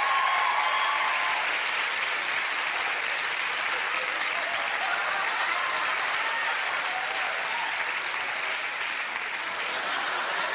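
Studio audience applauding steadily, slowly easing off.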